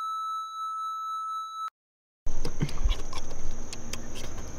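A steady, high electronic beep, a single held tone, lasts nearly two seconds and cuts off sharply. After a short silence come loud rustling and knocks from a person pushing into a dense evergreen shrub, with low rumble on the microphone.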